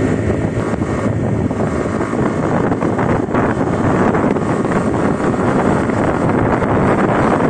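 Wind buffeting the microphone of a phone on a moving motorcycle, a steady rushing noise, with the motorcycle's engine running underneath.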